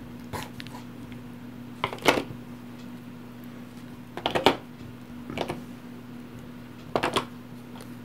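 Scattered clacks and knocks of small plastic game miniatures being handled and put away in their box, about five in all, the loudest near two, four and a half and seven seconds in, over a steady low hum.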